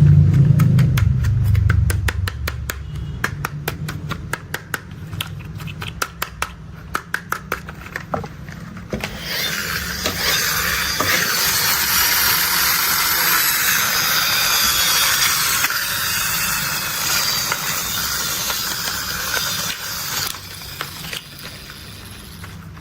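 Mechanical sounds for toy construction machines: a low engine-like rumble dies away in the first two seconds, then rapid, even clicking at several clicks a second, then a long steady hiss from about a third of the way in until near the end.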